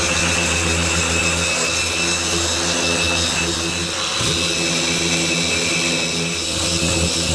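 Random orbital sander running steadily, sanding a multiplex plywood panel.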